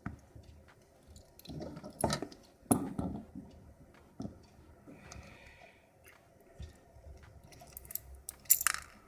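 Euro profile pin-tumbler lock cylinder being handled with its key in as it is taken apart, giving irregular small metallic clicks and scrapes. The louder clicks come about 2, 3 and 8.5 seconds in.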